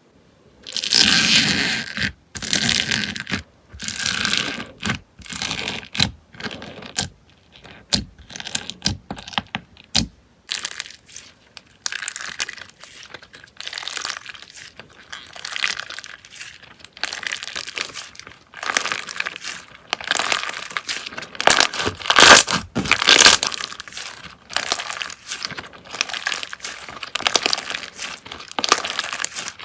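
Hands squeezing, poking and stretching slime, making an irregular run of crackles, sharp little pops and squelches that come in bursts.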